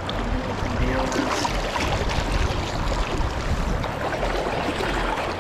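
Steady rush of flowing river water, with a low rumble underneath.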